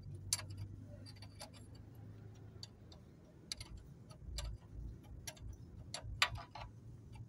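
Irregular light metallic clicks and taps of a socket wrench working on the connecting-rod bolts inside the open crankcase of a Yanmar TF160 single-cylinder diesel, over a low steady hum.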